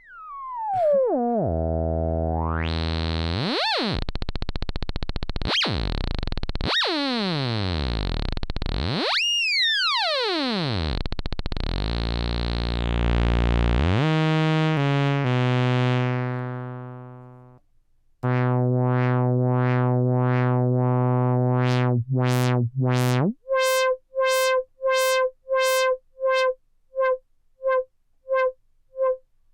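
Moog Werkstatt-01 analog monophonic synthesizer: wide sweeping pitch glides and filter sweeps, then a held low note. After that comes a steady train of short repeated blips, about two a second, that fade away near the end.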